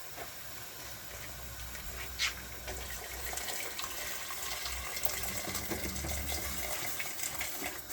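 Water pouring in a steady stream as more water is added to a pot of simmering goat meat, with a single knock about two seconds in.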